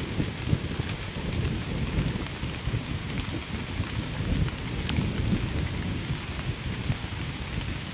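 Steady rain falling, an even hiss with scattered ticks of individual drops, over a deep, continuous, fluctuating rumble like distant thunder.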